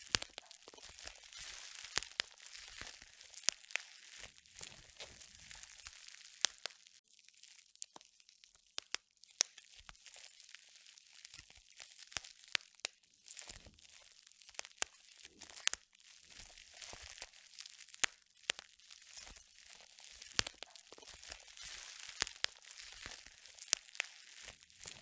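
Steady crinkling and crackling with many sharp clicks, as of material being crumpled or crunched close up. It thins out briefly about seven seconds in.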